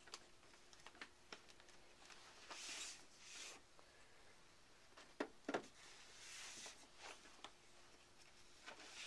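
Near silence: room tone with a faint steady hum, broken by scattered faint clicks and brief rustles, the sharpest two clicks a moment apart about five seconds in.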